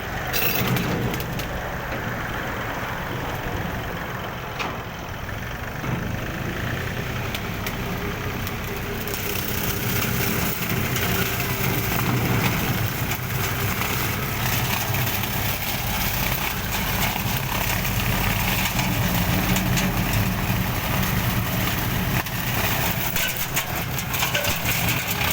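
Engine of a grass-cutting machine running steadily under load, with a rough, rattling noise on top that grows fuller about nine seconds in.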